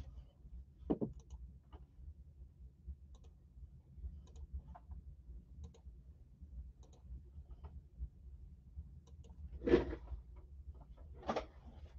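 Faint scattered clicks and light handling noises on a tabletop, with a short knock about a second in and a louder brief noise near the end.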